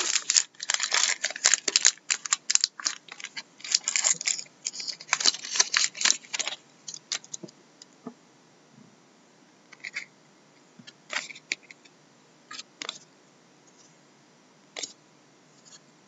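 Foil trading-card pack wrapper crinkling and rustling as it is opened and the cards are slid out, for about six seconds. After that come a few short clicks and flicks of the cards being handled and flipped.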